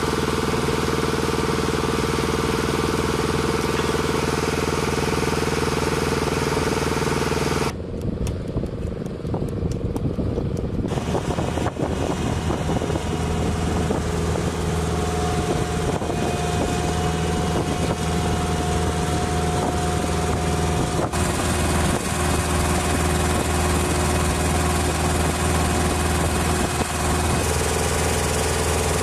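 Engine idling steadily, a continuous mechanical hum. The sound changes abruptly about 8 seconds in, and again about 21 seconds in.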